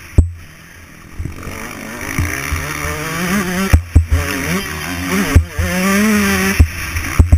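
Dirt bike engine heard from the rider's onboard camera: off the throttle at first, then revving up and down from about two seconds in, with several loud thuds along the way.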